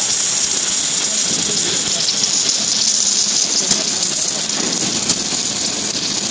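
Submerged arc welding in progress: a steady hiss with scattered faint crackles from the arc burning under the granular flux.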